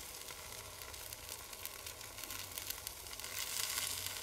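Steaks and bacon sizzling over charcoal on a grill grate: a steady hiss with scattered small crackles, swelling a little about three and a half seconds in.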